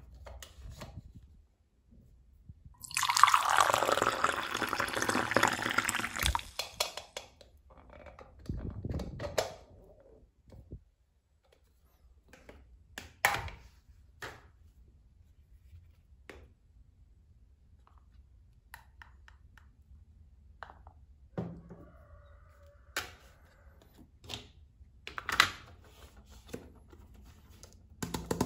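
Liquid poured from a toy blender jug into a small plastic cup, a few seconds long, with a shorter trickle afterwards. Scattered light clicks and knocks of plastic toy pieces being handled follow.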